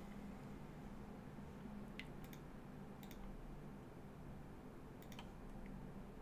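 Faint clicks at a computer, a handful of short sharp clicks, mostly in quick pairs, about 2, 3 and 5 seconds in, over a low steady hum.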